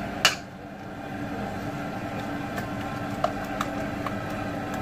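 Wire whisk stirring a soft ricotta mixture in a stainless steel bowl: one sharp metal knock about a quarter second in, then a few light clicks of the whisk against the bowl, over a steady low hum.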